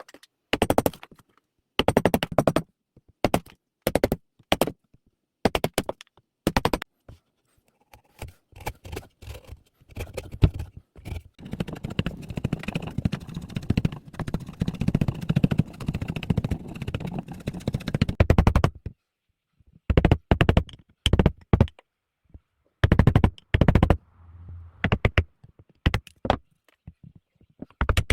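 Hand tools working wood: a run of short, rapid scraping strokes about once a second, with a longer, steadier stretch of scraping through the middle.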